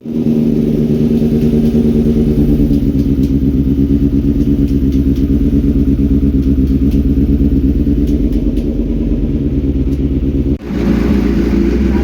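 Motorcycle engine running at a steady idle with a fast, even pulse. It breaks off for an instant near the end and carries straight on.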